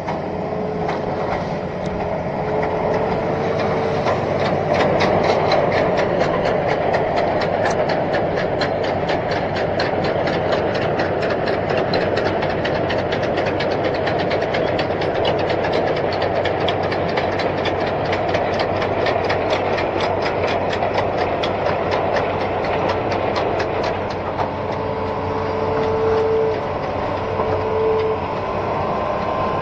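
Hitachi Zaxis 210F amphibious excavator travelling on its pontoon tracks: the diesel engine runs steadily with a whine, over a fast, even clatter of the track chains.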